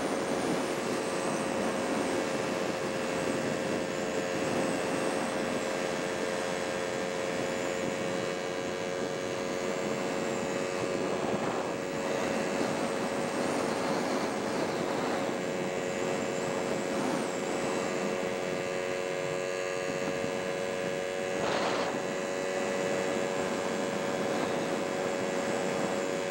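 Steady driving noise from a vehicle on the road, an even rush of road and wind noise with a constant low hum under it, and a brief thump late on.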